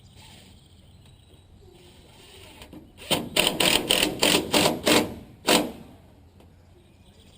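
Power drill-driver running in about eight short trigger bursts over some two and a half seconds, driving a rubber-washered screw that pulls a metal drip edge down tight.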